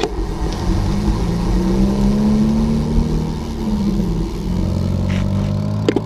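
A motor vehicle's engine running close by, its pitch rising a little and falling back midway, over wind rumbling on the microphone of a moving bicycle. A couple of sharp clicks near the end.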